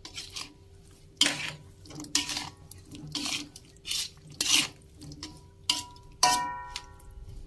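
Metal spatula scraping and knocking against a metal wok while stirring meatballs in sauce, in separate strokes about once a second, with one ringing clank near the end.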